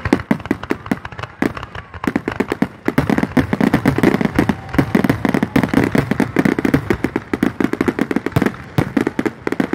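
Fireworks finale: a dense barrage of shells bursting in rapid succession, many cracks and bangs a second, growing thicker and near-continuous about two seconds in.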